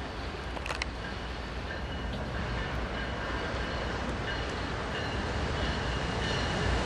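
BNSF diesel-hauled stack freight train approaching, a steady rumble growing gradually louder.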